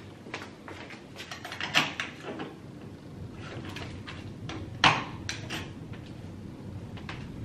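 Clicks and knocks of a metal post office box being opened and shut by hand, with its key and small door rattling; the loudest knock comes about five seconds in.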